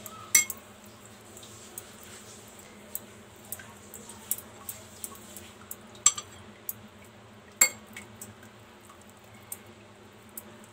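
Light, scattered clinks and taps of fingers and a bitter gourd against plates while the gourd is stuffed by hand with spiced potato filling, with a few sharper clinks near the start and twice in the second half. A low steady hum runs underneath.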